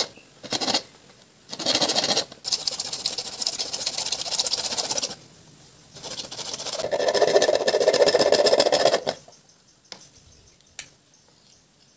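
Bare hacksaw blade sawing into the rim of a PVC pipe with rapid back-and-forth strokes, in several bursts, stopping about nine seconds in. Two light clicks follow near the end.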